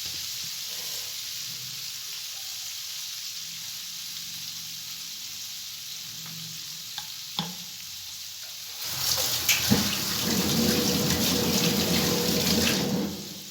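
Garlic, spices and sauces sizzling steadily in butter and olive oil in a hot pan. About nine seconds in, a louder rush of water from a tap runs for about four seconds and then stops.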